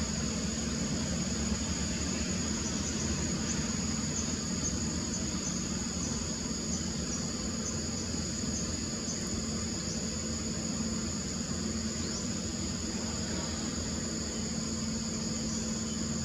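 Insects droning steadily at a high pitch, with a run of quick faint chirps a few seconds in, over a constant low hum and hiss.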